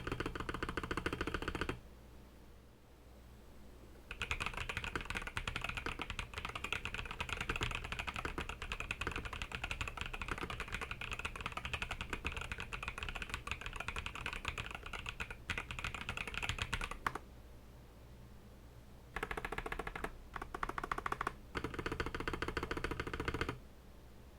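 Typing sound test on an Akko 5075B Plus mechanical keyboard fitted with Akko switches: runs of fast keystroke clacks. There is a pause about 2 s in, a long run of typing, another pause around 17 s, then a few shorter bursts near the end.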